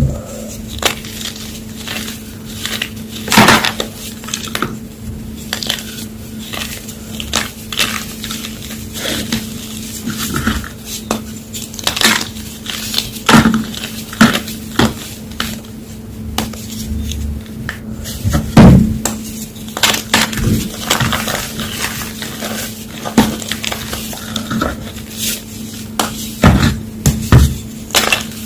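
Homemade gym chalk block being crushed, with irregular crunches and sharp cracks; a loud crunch comes about three seconds in and again a little past halfway.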